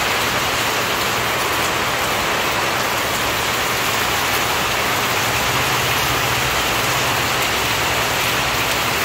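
Heavy rain falling steadily on a yard, with water streaming off a roof edge.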